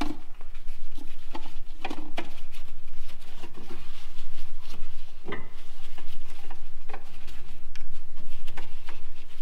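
Gloved hands working a bungee cord around a car's front strut and brake caliper: scattered light clicks, taps and rubbing as the cord and its hooks catch on metal parts, over a low steady hum.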